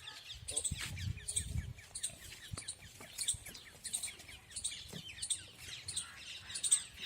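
Small birds chirping repeatedly in short, high calls, about once or twice a second, with a low rumble in the first second or so.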